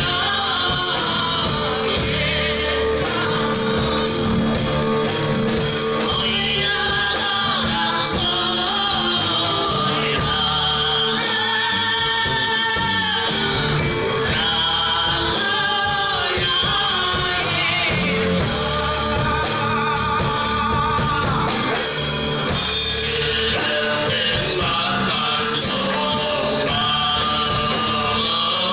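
Live band music: a man sings a Russian folk song in Tuvan khoomei throat-singing style over classical guitar, electric bass and drums.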